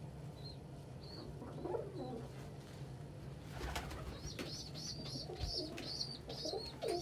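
Domestic pigeon squabs peeping in a short, high squeak repeated over and over, coming faster in the second half, with adult pigeons cooing low a few times. A brief scuffle sounds a little past halfway, over a steady low hum.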